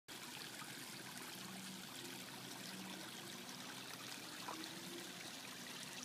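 Floating pond fountain's jets of water splashing steadily back onto the pond surface.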